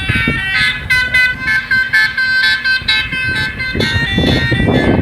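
A ringtone melody: a quick run of pitched notes, several a second, stepping up and down in pitch, over a low rumble.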